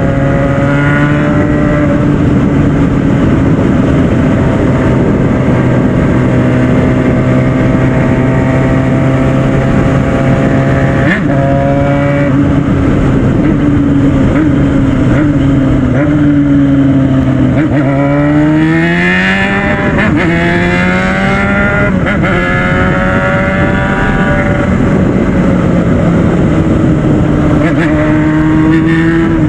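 Yamaha FZ6 Fazer 600's inline-four engine running at a steady pitch, then revving up sharply about two-thirds of the way through and dropping back to a steady pitch.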